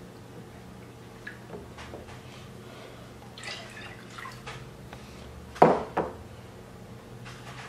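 Milk being poured, trickling from a plastic jug into a glass measuring cup and from the cup into a plastic mixing bowl. A little past halfway come two sharp knocks of the containers on the countertop.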